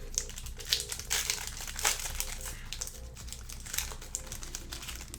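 Plastic wrapper of a Panini Select basketball trading card pack crinkling irregularly as it is torn open and handled, with a few sharper crackles.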